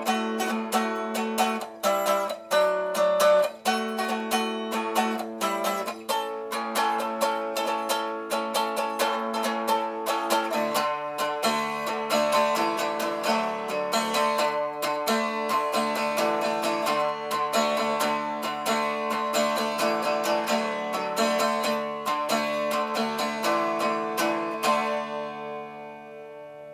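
Acoustic cigar box guitar built by Crafter Blues Guitare, played as blues: quick picked notes over ringing open strings. About ten seconds in, a lower bass note joins. Near the end the last chord rings out and fades away.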